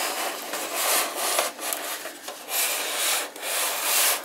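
Rubbing and scraping as the tin-plate toy roller coaster's base is slid and turned by hand across a table, coming in uneven swells.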